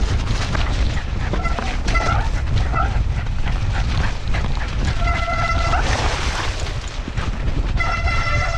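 Loud rushing and buffeting from a harness camera on a running dog, with scattered knocks. High squeals cut through it: a few short ones in the first three seconds, then two longer steady ones in the second half.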